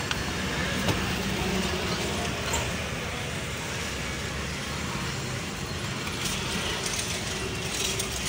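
Steady street traffic noise: the low rumble of passing motor vehicles, with a few light clicks near the end.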